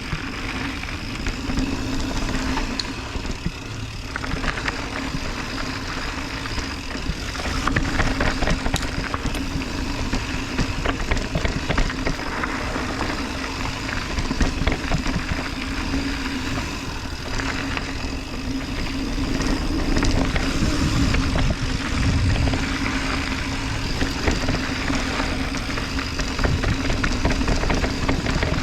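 Mountain bike riding down a dirt downhill trail: wind rushing over the camera microphone, tyres rolling over dirt, and a steady scatter of rattles and knocks from the bike over rough ground, with a steady hum underneath.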